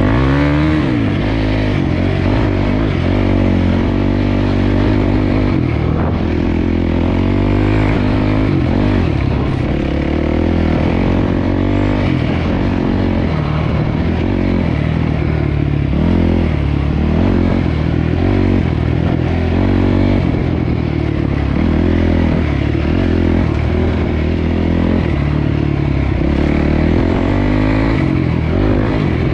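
Dirt bike engine running, revving up and easing off again and again as it is ridden.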